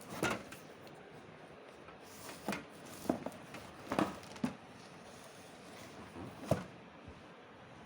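A few light, separate knocks and clicks with faint rustling: fan parts and their packing being handled while the fan is unboxed.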